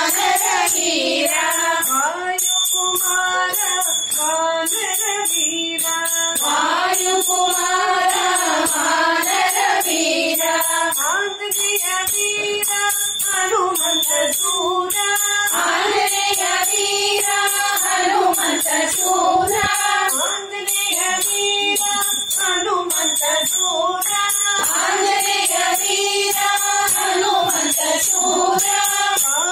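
A group of women singing a devotional song (bhajan) together, with a jingling percussion keeping a steady beat.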